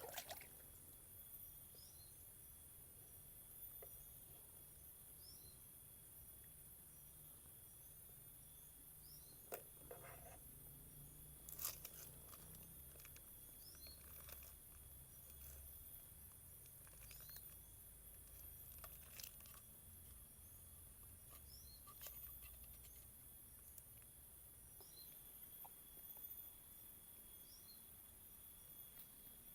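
Faint outdoor ambience of a steady, very high-pitched insect chorus, with short repeated bird chirps. A few sharp clicks stand out, the loudest about twelve seconds in.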